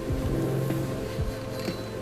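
Background music with held notes over a steady low beat.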